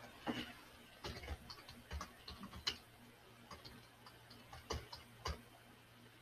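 Typing on a computer keyboard: irregular clicking keystrokes in short bursts, a few taps louder than the rest.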